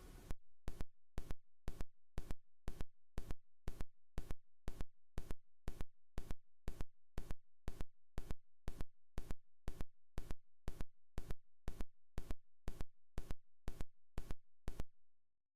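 Regular sharp clicks, about two a second, evenly spaced and steady, stopping suddenly near the end.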